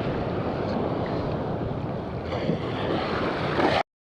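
Wind buffeting the microphone over surf washing on the shore, a steady rough noise that cuts off abruptly near the end.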